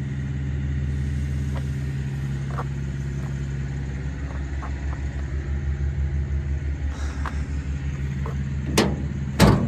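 An engine idling with a steady low pulsing beat. Near the end come two sharp knocks, the second one louder.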